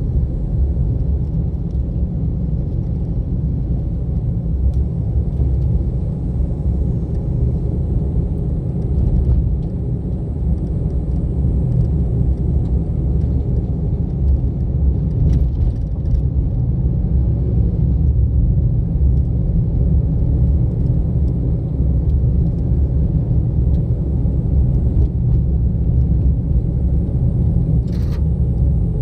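Car driving: a steady low rumble of engine and tyre noise, with a few faint ticks and a brief sharp click near the end.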